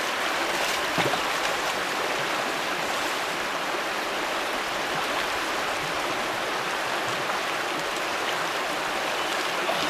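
Steady rushing of stream water, an even hiss with no rise or fall.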